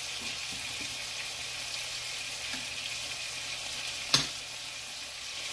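Hamburger patties sizzling steadily in grease on a stovetop griddle. About four seconds in there is one sharp clink as a spoon knocks against the pot being stirred.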